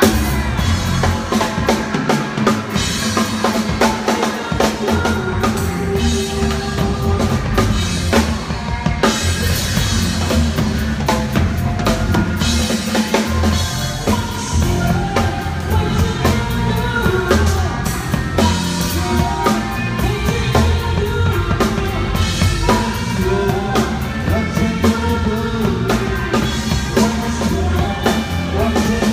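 Live rock band playing, with the drum kit loudest (bass drum and snare hits) over electric guitars, heard from behind the stage close to the drums.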